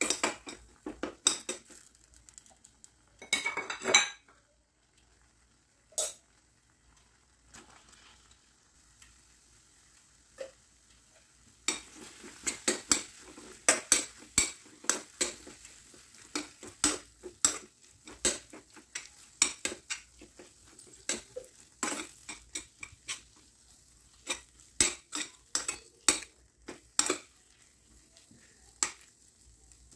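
A metal spoon stirring a mixture in a stainless steel pan, clinking and scraping against the pan in irregular runs, busiest in the middle stretch, with quieter pauses between.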